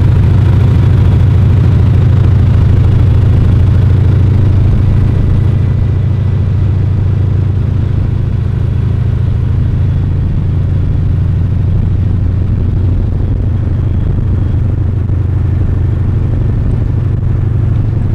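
Float plane engine drone heard from inside the cabin: a loud, steady low hum that eases off slightly about six seconds in.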